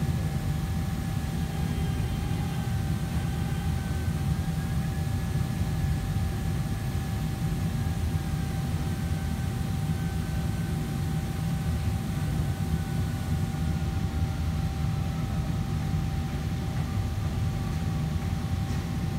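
Steady low machine rumble with a constant high whine, and a fainter second tone that slowly falls in pitch.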